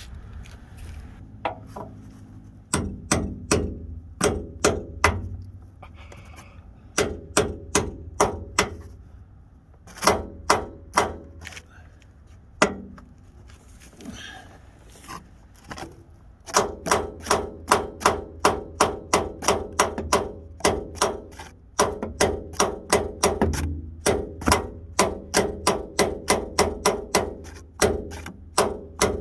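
Hammer blows on a bushing removal tool driving a corroded, stuck bushing out of a Jeep Wrangler JK door hinge. Runs of sharp metallic strikes, several a second, with a ringing tone and short pauses between runs.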